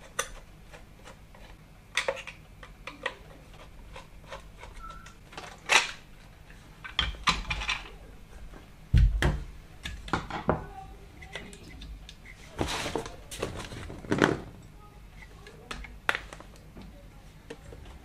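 Hard plastic aquarium sump pump parts being handled and taken apart: scattered clicks, knocks and light clatter of the pump housings, with a heavier thump about nine seconds in.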